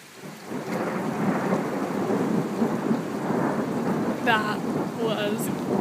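Thunder rumbling during a thunderstorm, swelling in about half a second in and rolling on steadily, with rain falling.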